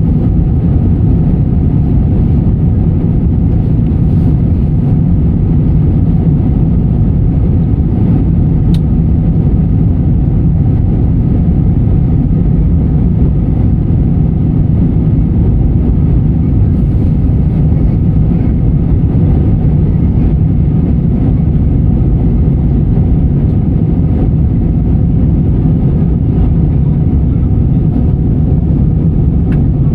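Passenger aircraft cabin noise: a loud, steady low rumble of the engines and airflow heard from inside the cabin, unchanging throughout.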